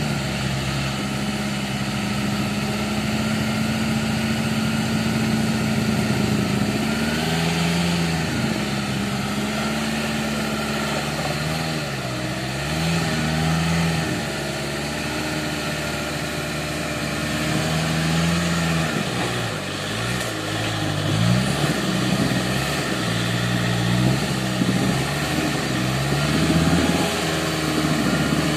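Suzuki Samurai 4x4's engine running at low, steady revs, then repeatedly revved up and dropped back as it works up a steep rocky climb, with quick up-and-down revving a little past the middle.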